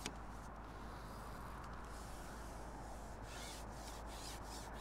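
Wind outdoors: a steady rushing background with several gusts of hiss and rustle in the second half.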